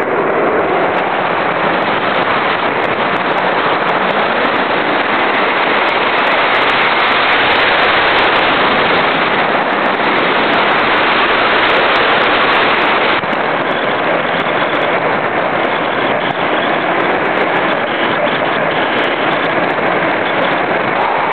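Steady rushing wind noise on the RC glider's onboard camera microphone, with scattered faint crackles. It drops a little in level about 13 seconds in.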